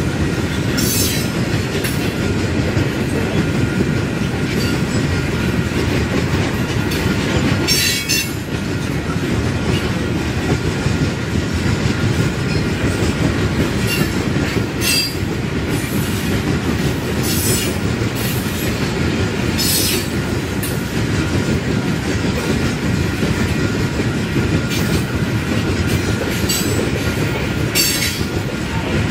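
Freight train of open-top rock hopper cars rolling past: a steady rumble of steel wheels on the rails, with brief high-pitched wheel squeals every few seconds.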